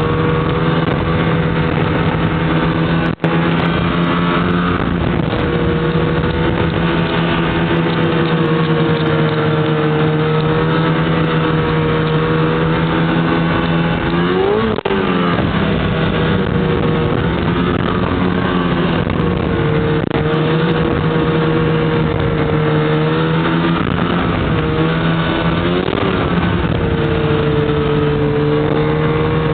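Snowmobile engine running at a steady, high speed. The pitch sags and climbs back twice as the throttle eases off and opens again, and the sound drops out for an instant twice.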